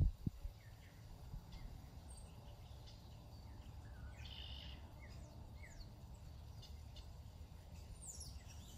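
Several birds chirping and calling at dawn: many short, quick falling chirps scattered through, over a steady low rumble. A couple of low thumps right at the start.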